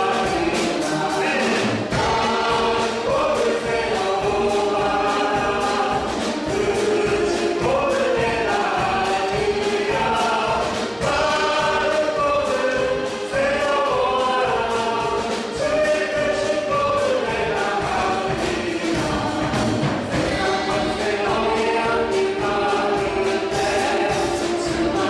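A church praise team singing a worship song together with a band accompaniment, several voices in unison over a steady beat.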